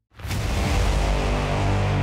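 Background music starting abruptly just after a brief silence, then running loud and full with a steady heavy low end.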